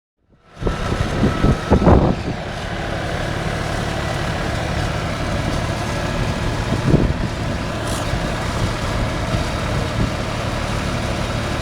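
Tractor engine running steadily, with a constant low hum and a couple of brief louder knocks about two and seven seconds in.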